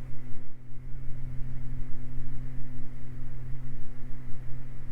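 Beechcraft Baron's twin piston engines and propellers droning steadily in the climb, propellers synchronised at about 2,500 rpm.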